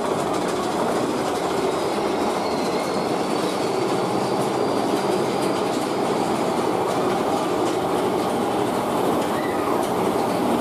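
Big Thunder Mountain Railroad mine-train roller coaster running through its cave, heard from on board. Its wheels keep up a steady rumble on the track, with light clacking.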